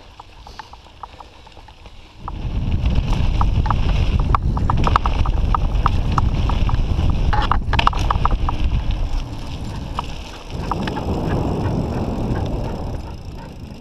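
Mountain bike riding fast down a dirt trail, heard from a bike-mounted action camera: wind rumbles on the microphone and tyres run over dirt from about two seconds in, with scattered clicks and rattles of gravel and the bike. The rumble dips briefly and then runs on lighter, fading near the end.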